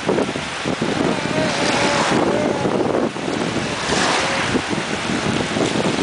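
Wind buffeting the microphone over the rush of water, a steady loud noise with gusty low rumbles.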